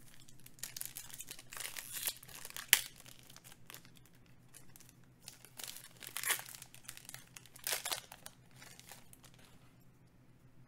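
Shiny plastic wrapper of a Magic: The Gathering booster pack crinkling and tearing as it is ripped open, in several bursts with a sharp snap about two and a half seconds in.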